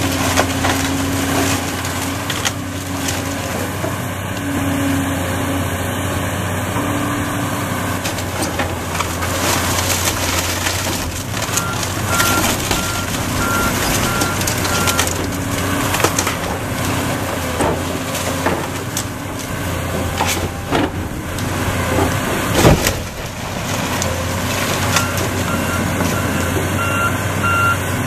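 Volvo excavator with a demolition grapple tearing into a wood-frame house: its diesel engine and hydraulics run steadily under cracking, splintering wood and falling debris, with one loud crash about 23 seconds in. A back-up alarm beeps in two stretches, around the middle and near the end.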